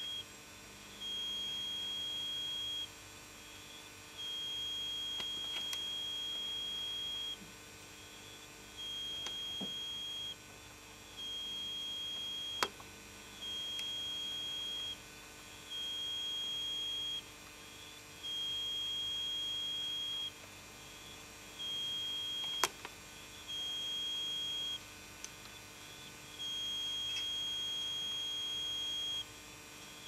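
A steady, high-pitched electronic beep sounding again and again in long tones of one to three seconds with uneven gaps between them, about ten in all. Two sharp clicks stand out, one near the middle and one about ten seconds later.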